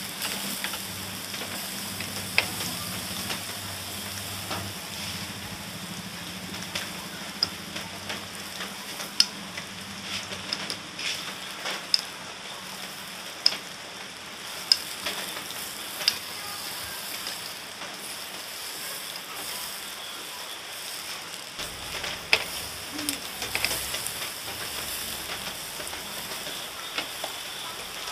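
Chicken inasal skewers sizzling on a grill: a steady hiss with frequent sharp pops and crackles.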